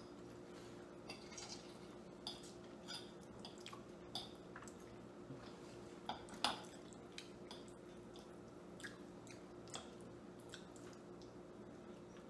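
Metal forks clicking and scraping now and then on ceramic dinner plates as two people eat pasta, with faint chewing, over a low steady hum.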